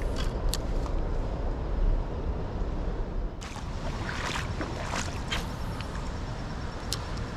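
Low rumbling wind noise on the microphone, with scattered clicks and a cluster of crunching, scuffing sounds a few seconds in.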